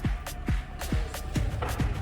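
Electronic dance music with a steady beat: a deep kick drum a little over twice a second under crisp hi-hat ticks.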